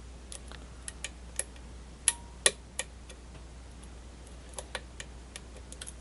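Hook pick clicking against the pin tumblers of a brass euro cylinder lock under tension as the pins are lifted and set toward a false set: irregular sharp metallic clicks, the two loudest about two seconds in, another cluster near the end.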